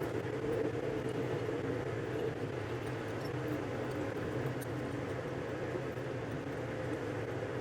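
Steady low rumble and hum of a vehicle in motion.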